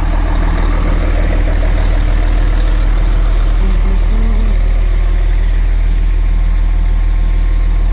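Concrete pump truck's diesel engine idling steadily with its power take-off (PTO) engaged to drive the pump hydraulics: a constant low hum.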